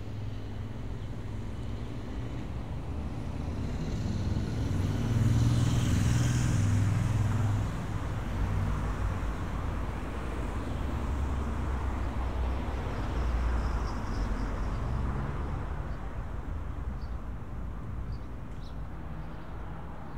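Street traffic: a motor vehicle drives past, its engine and tyre noise swelling about five seconds in and dropping away after about eight seconds, with steady traffic noise around it.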